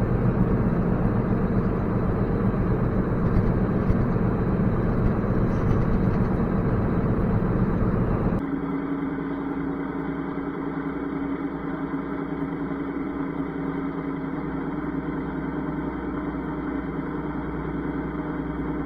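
Harvest machinery engine running steadily while harvesting corn, a heavy mechanical drone. About eight seconds in, the sound changes abruptly to a quieter, steady drone with a held hum.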